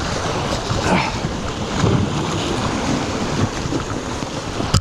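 Wind buffeting the microphone over the wash of surf breaking against the rocks below.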